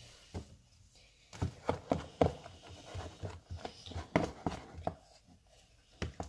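Wooden stick stirring thick slime in a plastic tub, knocking and scraping against the tub's sides in a quick, irregular series of knocks, with a short pause near the end.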